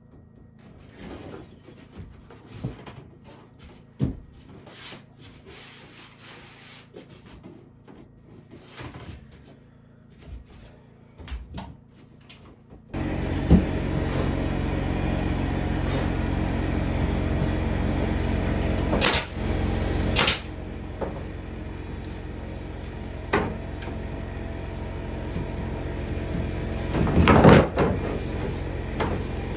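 Light knocks and clicks of things being handled, then about halfway in a motor starts and runs steadily, with a few sharp knocks over it near the end.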